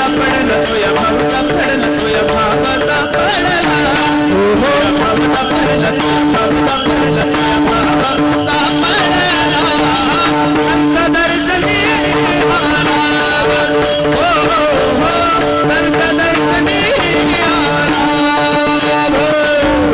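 Marathi devotional kirtan music: a voice singing a melody over a steady held drone, with quick, even rattling percussion beats.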